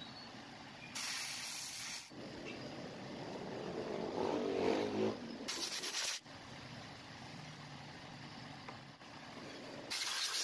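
Three short hissing blasts of a pressurised spray, each about a second long, with a duller noise in between, while motorcycle engine parts are being washed.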